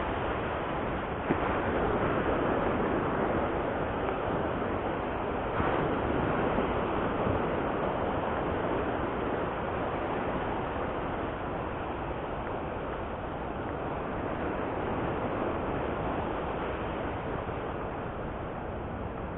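Steady noise of wind and breaking surf, with no distinct events.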